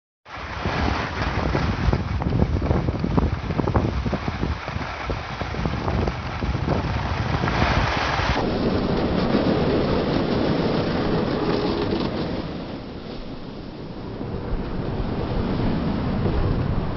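Wind rushing over the microphone while sliding down a ski slope, with the scrape of snow beneath. The hiss softens about halfway through.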